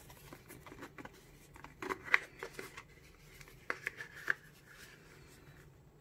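Cardboard Zippo lighter box being handled and opened by hand: scrapes and rustles of the box, with sharp clicks and taps in two clusters, the loudest about two seconds in.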